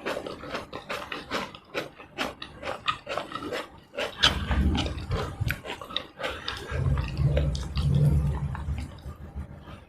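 Close-miked eating sounds: wet mouth clicks and smacking as rice and chicken in chilli sauce are chewed. From about four seconds in, the chewing carries a heavy low rumble in two long stretches.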